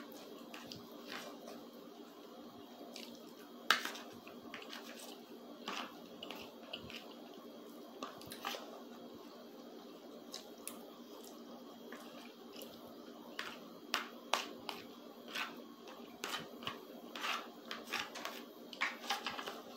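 Close-miked eating: wet chewing and mouth sounds with a metal spoon clicking and scraping on a plastic plate as food is scooped up. The clicks are irregular and come thicker in the last few seconds, over a steady low hum.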